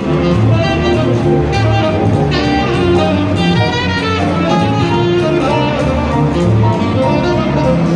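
Loud, continuous music with instruments playing.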